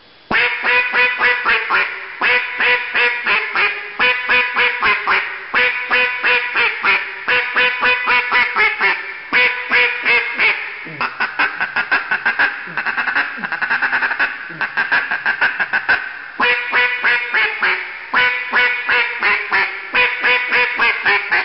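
Flamed hedge-wood (Osage orange) snub-nose duck call blown hard: loud, raspy hen-mallard quacking in repeated series of about seven quacks each, with a quicker run of shorter notes in the middle. Aggressive power calling, the loud style used to stay on ducks in flooded timber.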